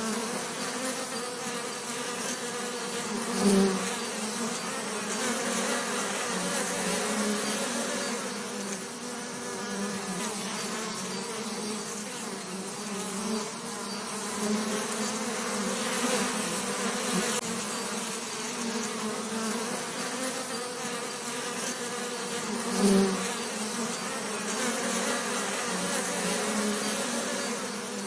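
Bees buzzing in a steady, low, wavering drone. Twice the buzz swells louder for a moment, about three seconds in and again near the end.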